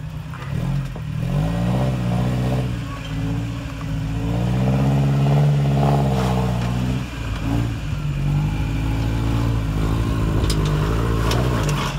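Toyota rock-crawler truck's 2.7-litre four-cylinder 3RZ-FE engine revving up and down under heavy load while climbing a steep rock slab in factory low range. A few sharp knocks near the end as the tires hop on the rock.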